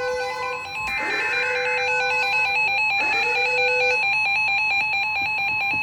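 NOAA Weather Radio warning alert: a steady alarm tone with a fast, evenly pulsing electronic beep over it, the signal that a warning is about to be read.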